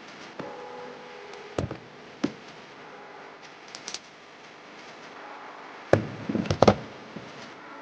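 Scattered knocks and clinks of tools and parts being handled during clutch work, with a cluster of louder knocks about six seconds in.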